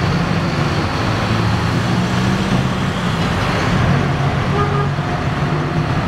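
Inside a city bus on the move: the engine's steady low drone with road and cabin noise.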